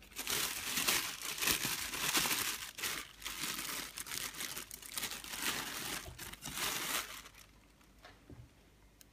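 Plastic bread bag crinkling and rustling as it is opened and handled to take out a slice of bread, a dense run of crackly rustles that dies away near the end.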